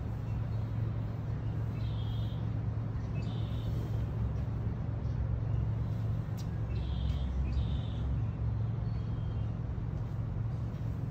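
Steady low hum of outdoor background noise, with a few short high bird chirps about two seconds in and again about seven seconds in.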